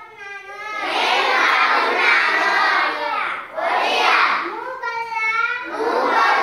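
A class of children chanting phrases in unison, each phrase first called out by a single child's voice and then repeated by the group in a sing-song recitation.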